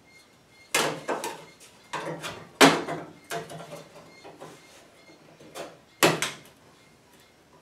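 Irregular sharp metal clanks and knocks, about five of them, each briefly ringing, from a sheet-steel patch panel being handled and worked into a truck's dash opening.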